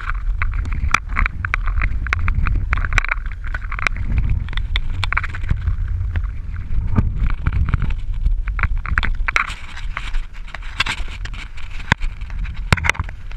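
Wind buffeting the microphone of a bicycle descending a road at speed, with many irregular clicks and rattles from the bike over the asphalt.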